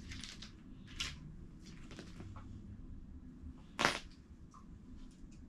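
Light clicks and handling noise from hands working on a rifle scope and its small parts, with one sharper click a little under four seconds in.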